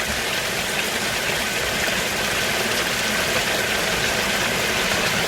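Heavy rain and water rushing through a French drain outlet: a steady, even rush.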